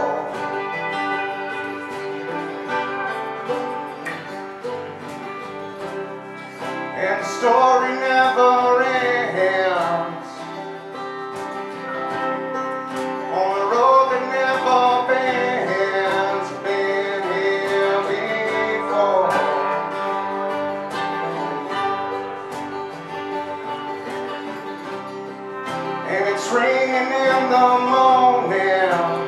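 Live country band of electric guitar, banjo, acoustic guitars, upright bass and mandolin playing a song, with sung lines coming in about every six seconds over the strumming.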